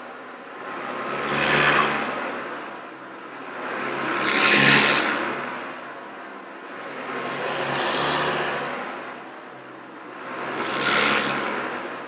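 Hoover Decade 80 upright vacuum cleaner running on carpet, its motor and suction swelling louder and fading about every three seconds as it is pushed back and forth.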